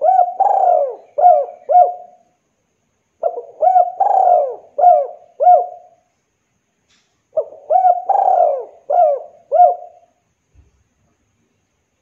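Spotted dove (derkuku) cooing: three loud phrases of about five coos each, a new phrase roughly every four seconds.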